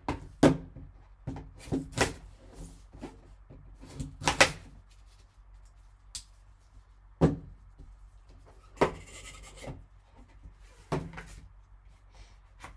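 Cardboard trading-card box being handled and opened by gloved hands: a series of taps and knocks as the box is turned and the lid comes off, with a scraping slide of cardboard lasting about a second a little past the middle.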